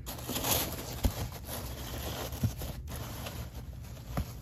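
Paper towels rustling and scraping as a hand pushes through the packing in a foam-lined cardboard box, with a few soft knocks.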